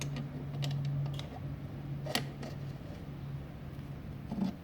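Scattered light clicks and taps of things being handled, with one sharper click about two seconds in, over a steady low hum.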